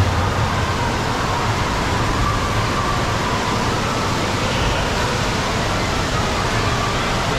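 Steady, even noise of running water across an indoor water park, with faint distant voices in the hall.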